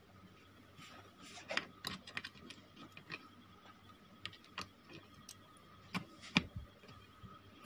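Irregular small clicks and taps of RCA phono plugs being pushed into the jacks on an amplifier's back panel and the cables being handled, with two sharper clicks in the last two seconds.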